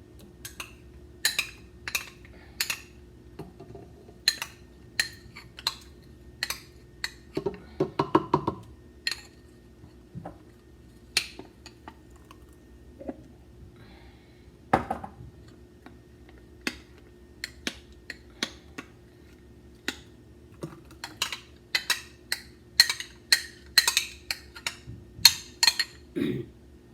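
Kitchen utensils clinking and tapping against dishes and containers while honey is measured out: dozens of short, sharp knocks, scattered at first and coming thick and fast near the end, over a faint steady hum.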